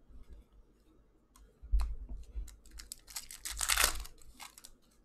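Foil wrapper of a hockey card pack being torn open and crinkled by hand: scattered crackles and a soft knock about a second and a half in, then a dense burst of crinkling and tearing, loudest near the fourth second, before it stops.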